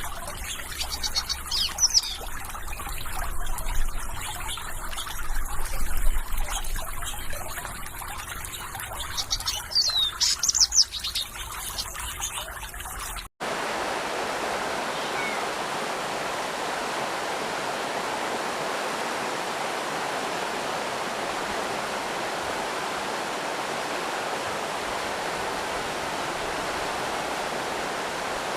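Water trickling and babbling with small birds chirping over it in high, sweeping calls. About halfway through there is a sudden cut to a steady, even rush of flowing water, with no birds.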